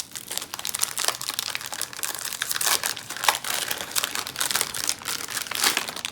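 Snack packet crinkling and rustling in the hands as it is handled and opened, a dense, irregular crackle.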